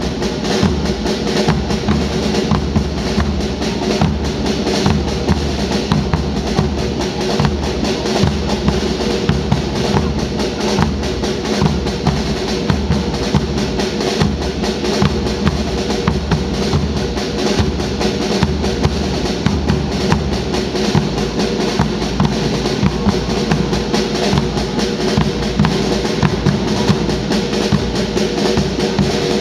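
Marching band drum section playing a continuous marching cadence, bass drums and snare drums beating steadily with snare rolls.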